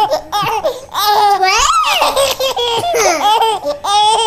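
A baby laughing: a string of high-pitched laughs in quick bursts, with short gaps for breath between them.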